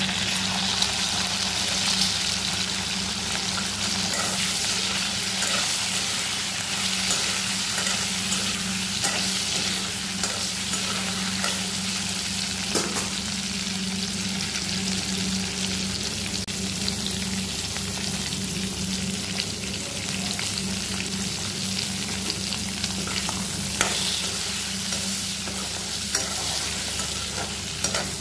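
Pork belly cubes sizzling as they fry in oil in a metal kadai, a steady hiss throughout. A few sharp clicks come from the pan, and near the end a metal spatula scrapes and stirs the meat against the kadai.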